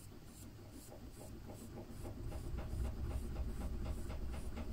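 A knife scratching the surface of a leather-hard clay slab in quick repeated strokes, about five a second: the slab is being scored so it can be joined to the next one. Faint at first, louder about two seconds in.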